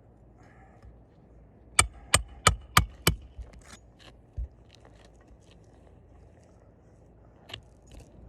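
Five quick, sharp hammer blows on a roofing snake, driving a roofing nail through the shingle into the roof decking, followed by a few lighter taps and clicks and a single knock.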